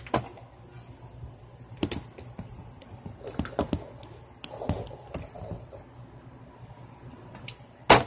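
Plastic clicks and handling knocks from a small spring-powered Nerf Micro Shots Fire Strike dart blaster, then one loud sharp snap near the end as it fires a dart.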